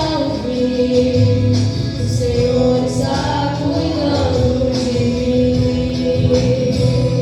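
Gospel worship song: voices singing long held notes over instrumental backing.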